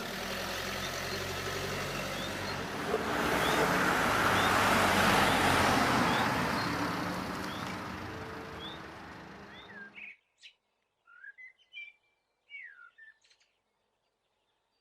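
A motor vehicle going past, its noise building to a peak and fading, then cutting off suddenly; a few faint bird chirps follow.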